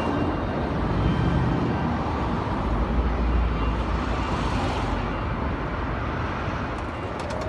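Street traffic: a steady rumble of cars, with one car passing close by about halfway through.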